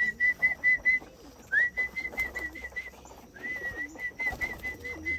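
A person whistling a call to bring homing pigeons into the loft: three runs of short, quick notes on one high pitch, each run opening with a quick upward swoop.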